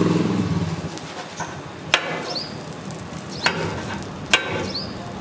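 A metal blade strikes a flat iron dosa griddle three sharp times as a rolled dosa is cut into pieces. Under it runs a steady low hum and faint griddle noise.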